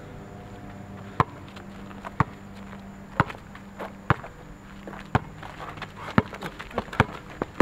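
Basketball being dribbled on an asphalt street: sharp bounces about once a second, coming quicker in the last second or so as the dribbler makes his move.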